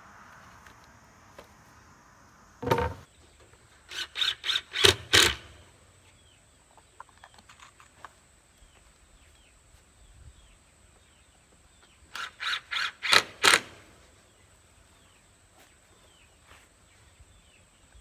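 Hammer driving nails into wooden boards: a single knock, then two quick runs of about five blows each, the blows getting louder. Faint bird chirps between them.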